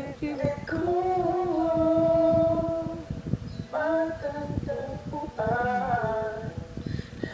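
A woman singing a slow melody in long held notes, with a short break about halfway through.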